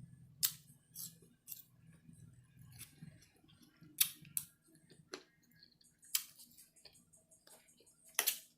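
Close-miked eating: sharp mouth clicks and smacks while chewing shrimp curry, about eight irregular clicks over several seconds.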